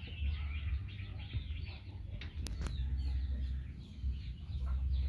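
Small birds chirping, a dense run of short, quick falling notes, over a steady low rumble. Two sharp clicks about halfway through.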